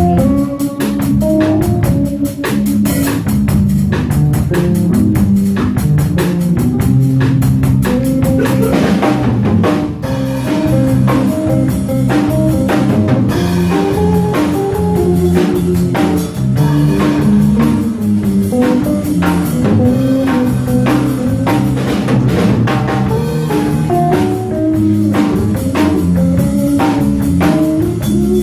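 Small jazz combo playing at a steady tempo: a melodic line over piano chords, bass, and a drum kit keeping time.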